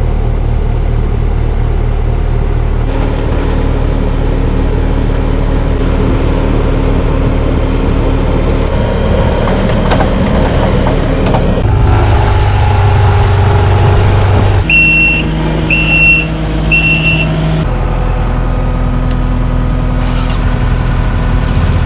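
A vehicle engine running steadily, its pitch shifting abruptly several times. About fifteen seconds in come three short high electronic beeps, spaced about a second apart, from a reversing alarm.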